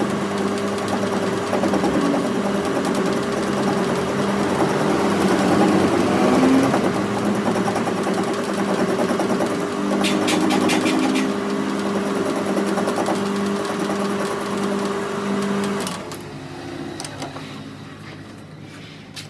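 A motor-driven workshop machine running steadily, then shutting off about three seconds before the end, after which a few light clicks follow.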